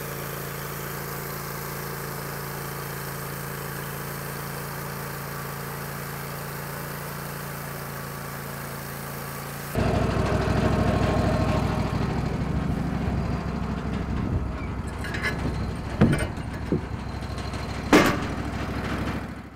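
Wood-Mizer LT15 Wide bandsaw mill running steadily, its engine driving the band blade through a log. About ten seconds in, the sound changes abruptly to the mill's engine idling close by, with heavy wooden knocks as a sawn cant is turned over on the steel bed; the two loudest knocks come near the end.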